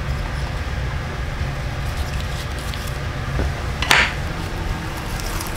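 Eating at a table over a steady low background rumble: faint clicks of chopsticks and dishes while a leafy ssam wrap is put together, then a short, louder rustle of the leaf wrap close to the microphone about four seconds in.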